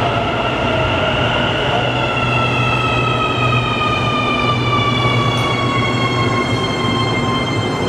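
CAF AS-14 metro train pulling into the station and slowing, its traction motors giving a whine in several tones that falls slowly in pitch as it brakes, over a steady rolling rumble.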